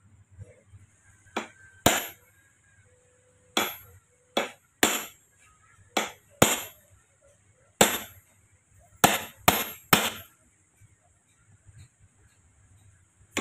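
Hammer blows on a steel tool held against the gear stack of an opened Mitsubishi Triton 4M40 manual transmission: about eleven sharp metallic strikes with a ringing edge, irregularly spaced, several coming in quick pairs.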